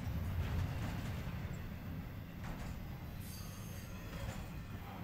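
Intermodal freight train rolling past: a steady low rumble of steel wheels on the rails, with a few light clanks and a brief high wheel squeal about three seconds in.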